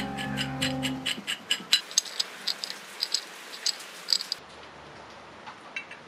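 Irregular sharp metallic clicks and taps from the restored antique adjustable wrench as it is handled and its adjusting sleeve is turned by hand, following background music that stops about a second in. A few fainter ticks come near the end.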